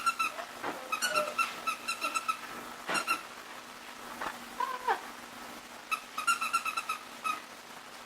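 Young puppies whining and squeaking in quick runs of short, high-pitched cries at a steady pitch, with one short whine that bends in pitch about halfway through.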